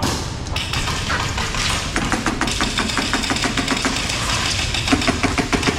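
Airsoft guns firing rapid bursts of sharp clicking shots, starting about a second and a half in, with a louder cluster of cracks near the end.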